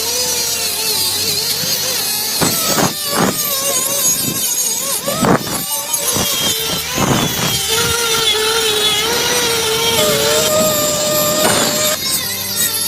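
Small electric power tool running on the rifle's wooden furniture, its motor pitch wavering as the load changes, with a few sharp knocks in between.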